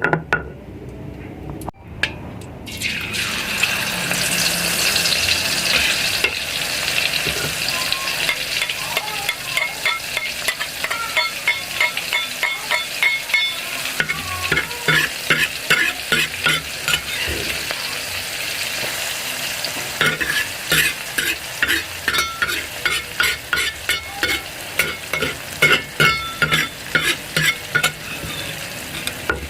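Food frying in hot oil in a pan. A loud sizzle starts suddenly about three seconds in and goes on steadily, while a spatula stirs and scrapes the pan in quick, regular strokes through much of the second half.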